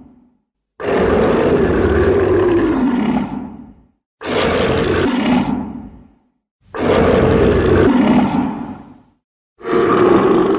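Zilla Junior monster roar sound effects: four separate roars, each about two to three seconds long, with short silent gaps between. The first falls in pitch as it fades.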